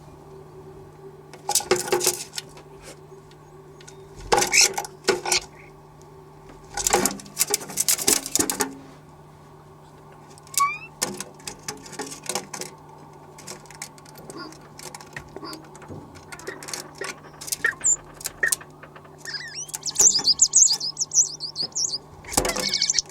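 Starlings in a dryer vent: several short bursts of scratching and fluttering, a few brief rising chirps, then a burst of high chattering chirps near the end, over a steady low hum.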